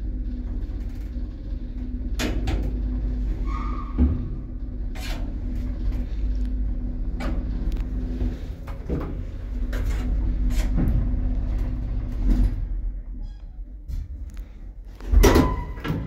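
1972 passenger lift running: a steady low hum and rumble with scattered clicks and knocks. The rumble eases off about thirteen seconds in, and a loud clunk with a brief ringing tone comes near the end.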